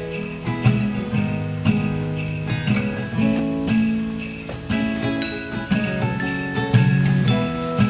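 Background Christmas pop music, instrumental intro: jingle bells over a steady beat of about two strokes a second, with sustained chords and melody notes.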